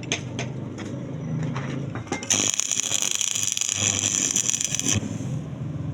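Electric arc welding on a pipe: a few light ticks, then about two seconds in the arc strikes and sizzles for nearly three seconds before cutting off suddenly, over a low steady hum.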